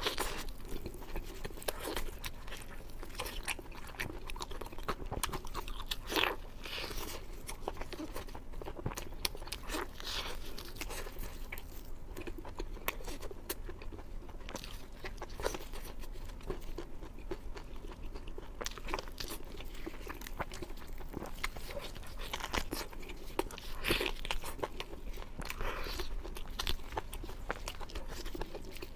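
A person biting and chewing beef short ribs, with many small crunches and clicking mouth sounds throughout.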